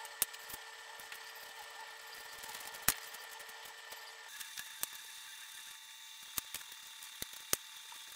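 Scattered light metallic clicks and taps as hose clamps on the A/C lines are handled and fitted by hand, one sharper click about three seconds in, over a faint steady hum.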